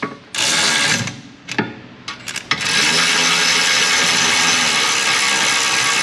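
Power tool spinning the caliper bracket bolts down. It runs briefly about a third of a second in, gives a couple of short bursts, then runs steadily from about three seconds in as the bolts run down before final torque.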